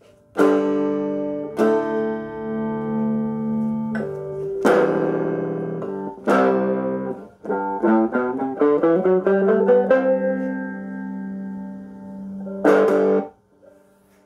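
Three-string CB Gitty Hubcap Howler cigar box guitar, open-tuned G D G, with a P90 pickup and hubcap resonator, played electric through a small Honey Tone amplifier. Several strummed chords ring out, then a quick run of picked single notes about halfway through, a held chord, and a final strum that is cut off sharply near the end.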